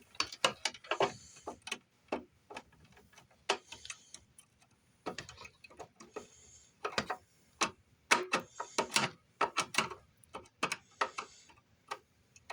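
Irregular clicks and light knocks of small hardware being handled at close range: screws, wire and a screwdriver on a siren timer's terminals. The clicks come in uneven clusters, busiest about a second in and again from about seven to nine seconds in.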